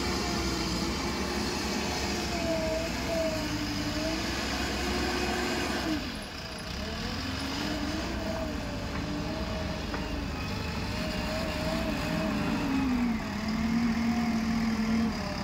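JCB 3DX backhoe loader's diesel engine working under load, its pitch rising and falling as the front loader bucket digs into and lifts sand, dropping to a steadier lower note near the end.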